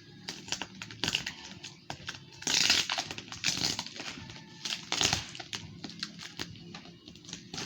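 Packaging being handled and opened by hand: crinkling, rustling bursts with small clicks and knocks, loudest about two and a half seconds in and again near five seconds.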